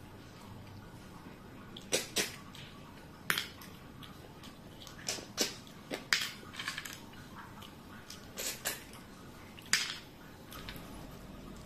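Eating by hand, a meal of rice and sucking snails: a string of short, sharp clicks and smacks at irregular intervals, some coming in quick pairs.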